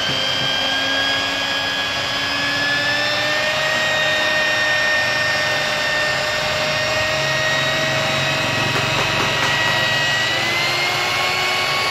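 Handheld electric rotary polisher running with its pad pressed on car window glass: a steady motor whine that rises slightly in pitch near the end.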